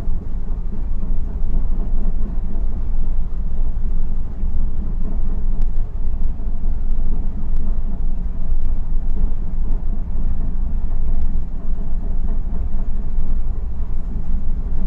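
Steady low machinery drone of a ship, heard on the bridge, with a few faint clicks scattered through it.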